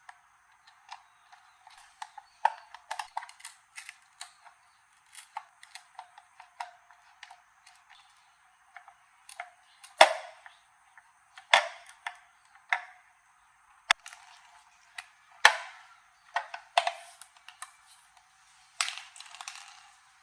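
Scattered sharp clicks and knocks of hand work on a toaster and its parts, irregular and uneven in strength. The loudest come about halfway through, twice more in the second half, and as a quick cluster near the end.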